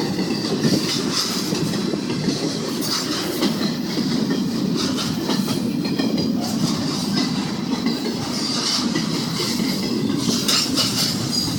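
Intermodal freight train rolling past: a steady rumble of the cars with wheels clicking over the rail joints. No horn is heard.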